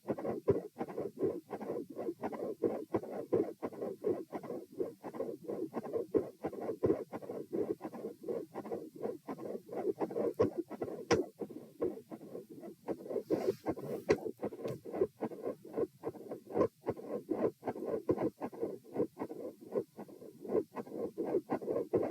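Heartbeat heard through a stethoscope at the mitral position, lying down: a regular lub-dub at about 72 beats a minute, with a split second heart sound and a mid-systolic murmur. A few sharp clicks break in around the middle.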